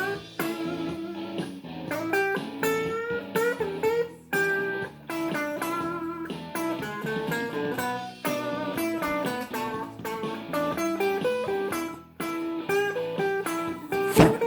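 Guitar playing a blues line of single picked notes, some of them bent up in pitch, with a sharp knock near the end.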